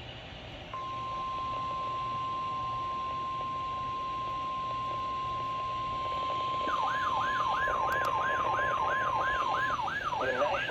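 NOAA Weather Radio warning alarm tone: a steady single 1050 Hz tone that starts about a second in and holds for about nine seconds, announcing a new warning. From about seven seconds in, a siren-like alarm sweeping quickly up and down, about three times a second, sounds over it.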